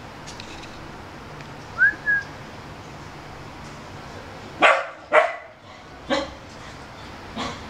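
A dog barking four times, short sharp barks about a second apart, the first two the loudest. About two seconds before them come two short high whistled notes.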